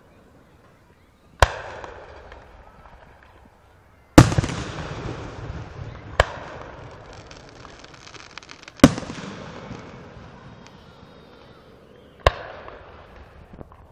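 Aerial fireworks shells bursting: five sharp booms a few seconds apart, each trailing off in a long echoing rumble.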